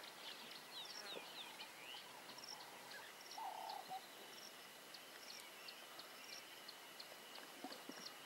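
Faint bush ambience of birds calling: quick falling chirps in the first two seconds, then a short high call repeated about twice a second over a steady high hum, with a brief lower call about three and a half seconds in.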